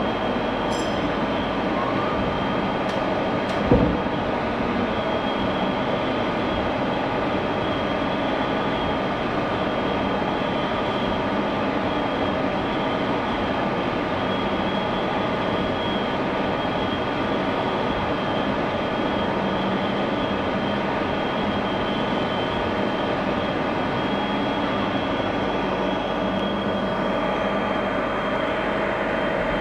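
CNC lathe running steadily during a machining cycle: an even mechanical hum with a high steady whine over it. A single knock about four seconds in.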